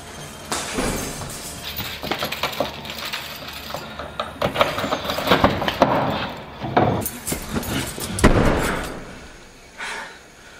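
Hurried footsteps and small clicking handling noises, then a car door opened, someone climbing into the seat, and the door shut about eight seconds in, the loudest sound.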